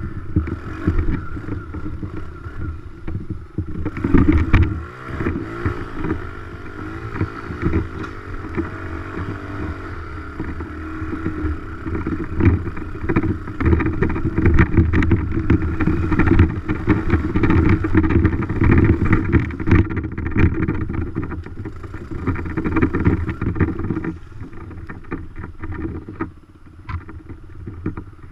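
Dirt bike engine running while being ridden, its revs rising and falling several times early on, with knocks and rattles throughout; it runs quieter in the last few seconds.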